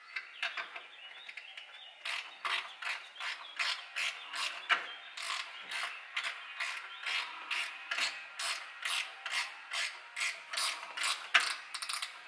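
Hand socket ratchet clicking in short repeated strokes as a bolt on the exhaust's front bracket is tightened. The strokes are sparse at first, then settle into a steady pace of about two to three a second from about two seconds in.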